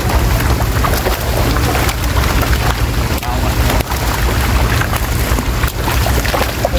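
Dense splashing and slapping of a mass of catfish thrashing in the shallow water of a drawn-in seine net, like heavy rain on water, over a steady low rumble.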